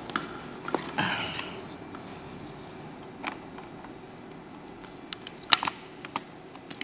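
Small clicks and rustling of hands working a network cable's wires into an RJ45 keystone jack, with a few sharp ticks, several of them near the end.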